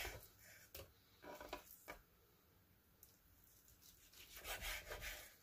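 Chef's knife slicing raw cod fillet on a wooden cutting board: faint soft cuts, with a few light clicks of the blade in the first two seconds and a longer cutting stroke about four to five seconds in.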